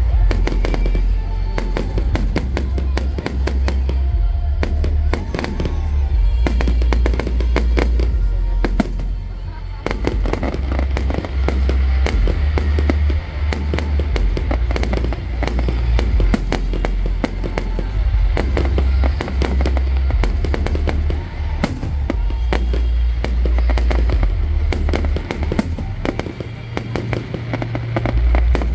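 Fireworks display going off continuously, with rapid bangs and crackling reports in quick succession over a heavy low rumble, and music playing alongside.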